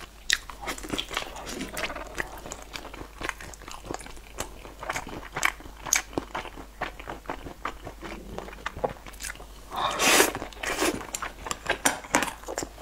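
Close-miked biting and chewing of a sauce-coated piece of meat: a run of small crunches and mouth clicks, with a louder, noisier stretch about ten seconds in.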